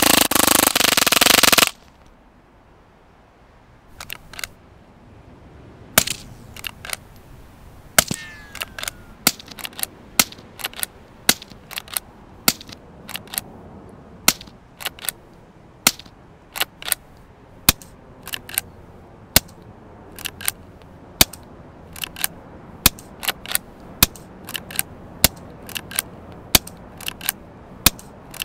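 Suppressed .22 rimfire shots from a Henry lever-action rifle fitted with a SilencerCo Sparrow 22 suppressor. From about six seconds in they come roughly once a second, each a sharp crack with the clack of the lever being worked between shots. A loud, dense burst of noise fills the first two seconds.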